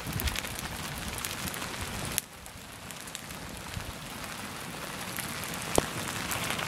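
Rain falling on a tarp: a steady hiss with many sharp drop ticks and one louder tick near the end. It turns suddenly quieter about two seconds in.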